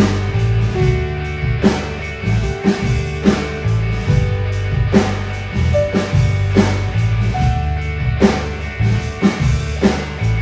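Instrumental passage of a rock song: a drum kit keeps a steady beat under a sustained bass line and held guitar notes, with no vocals.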